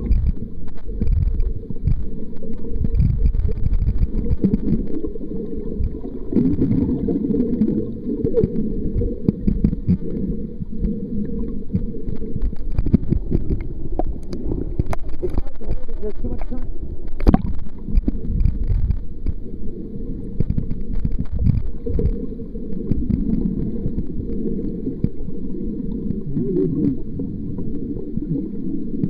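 Muffled underwater sound of water moving and sloshing against a submerged camera, a steady low rumble with a few sharp clicks, the loudest about seventeen seconds in.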